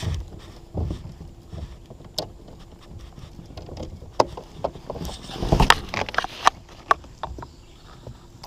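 Scattered knocks and clicks of handling gear in a plastic paddle kayak, with a busier cluster of knocks a little past the middle.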